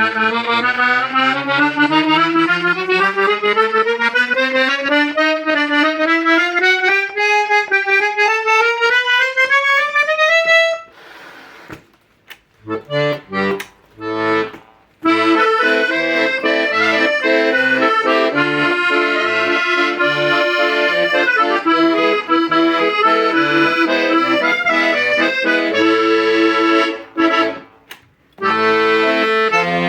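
Hohner Concerto III T piano accordion being played: a rising scale of single notes for about ten seconds, then after a short pause, held chords with short bass notes underneath, broken by a brief stop near the end.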